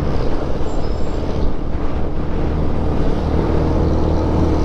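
Motor vehicle running steadily: a constant low engine hum under an even rushing noise of road and passing air.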